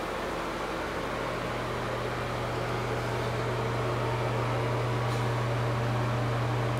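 A steady mechanical hum: a strong, even low drone with a constant hiss above it.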